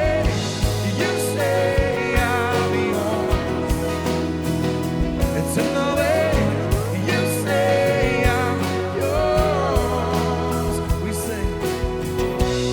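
Live worship band playing a song, with a singer's voice over guitar and drums.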